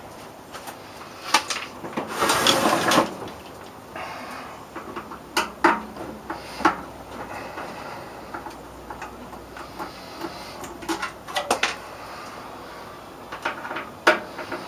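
Hand tools and metal parts of a microwave oven clicking and knocking as it is being taken apart, with a short scraping rustle about two seconds in.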